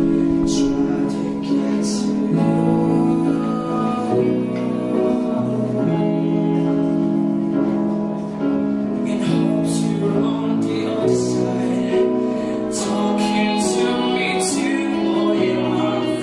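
A young man singing a slow song into a microphone, accompanied by an electric guitar holding sustained chords that change every second or two.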